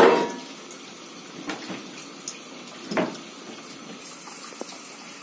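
Kitchen tap running into a bowl at the sink. A loud clatter of crockery comes at the start and another knock about three seconds in.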